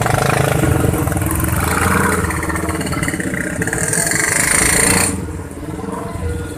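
Many small motorcycle engines revving and pulling away together as a crowd of motorbikes crosses the railway tracks. A high hiss over them cuts off suddenly about five seconds in.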